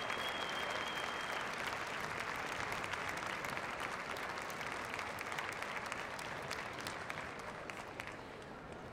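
Arena audience applauding steadily, the clapping slowly fading away over the last few seconds.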